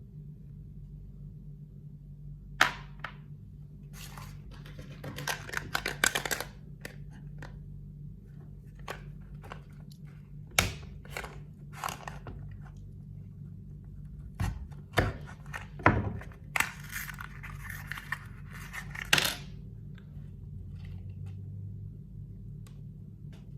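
Packaging being handled: rustling and tearing in two busy stretches, with scattered sharp clicks and knocks, over a steady low hum.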